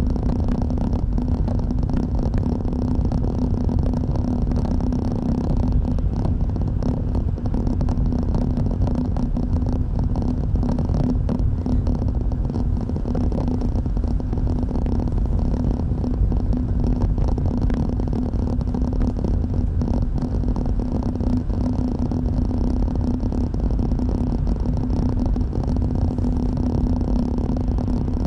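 Steady cabin noise of a car driving along: tyre and engine noise with a constant low hum.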